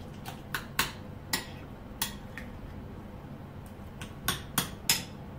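Metal spoon clinking and scraping against a ceramic bowl while mixing guacamole: a handful of sharp taps, sparse in the middle and three in quick succession near the end.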